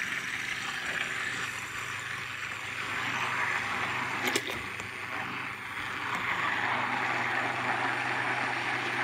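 Electric stick blender running steadily in a bowl of raw eggs and milk, whisking them into a smooth mix, with a sharp click about four seconds in.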